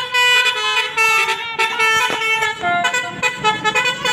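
A Basuri V3 telolet musical horn on a bus, its trumpets mounted on the roof, playing a quick tune. Several horn notes sound together and change pitch every fraction of a second.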